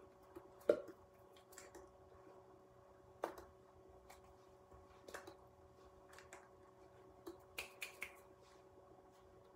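Faint, scattered clicks and taps of hands striking and brushing each other and the body during signing, a handful of them spread irregularly, over a low steady hum.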